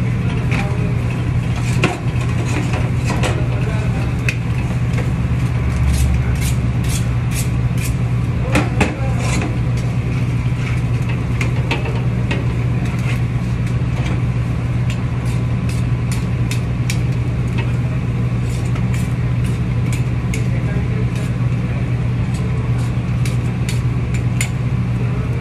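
A loud, steady low machine hum in a shawarma kitchen, with frequent sharp clicks and taps of a knife, tongs and flatbread against a steel tray around a vertical shawarma spit.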